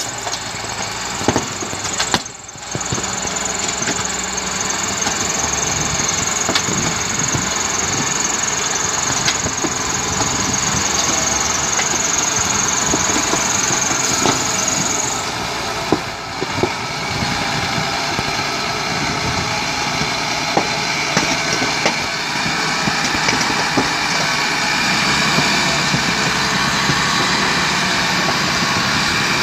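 Lonking wheel loader's diesel engine running steadily under load, with scattered knocks and cracks as its bucket pushes through a heap of cardboard boxes. A high steady whine sounds along with it and stops about halfway through.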